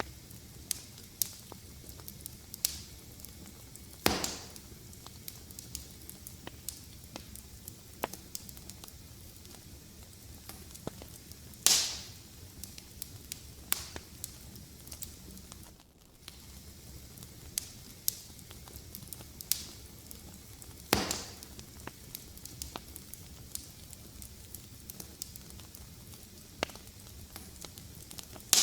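Fire crackling in a fireplace: a steady low hiss with frequent small snaps, and three louder pops about four, twelve and twenty-one seconds in.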